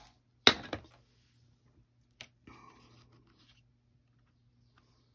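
Craft tools and paper handled on a desk: one sharp knock about half a second in, a smaller click around two seconds, then a brief soft paper rustle.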